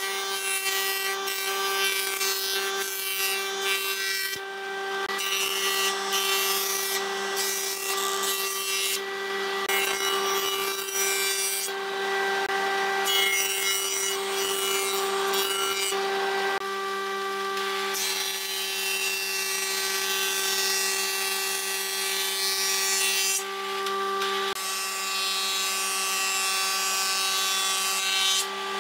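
Electric jointer-planer running with a steady whine while its cutterhead shaves a wooden board in repeated passes. Each pass is a long rough rush of cutting noise, with short breaks between passes.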